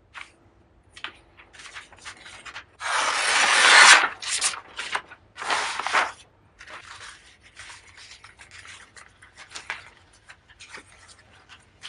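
Dry rubbing and scraping strokes by hand on a surface, coming in irregular bursts. The longest and loudest stroke swells for about a second, about three seconds in.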